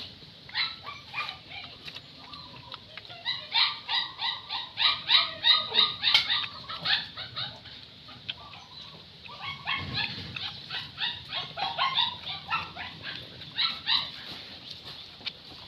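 Puppy yipping and whining in fast strings of short, high calls, several bouts with pauses between.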